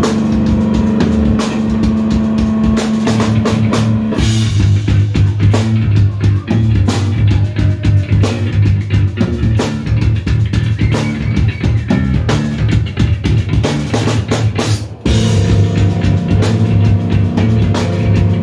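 Instrumental heavy rock played live by two electric bass guitars and a drum kit: low, sustained bass riffs over busy drumming. The riff changes about four seconds in, and the band breaks off for a moment a few seconds before the end, then comes back in.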